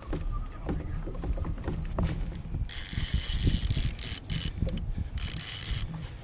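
Baitcasting fishing reel's clicker buzzing in two spells as a hooked salmon pulls line off, the first over a second long and the second shorter near the end, over low water and wind rumble around the kayak.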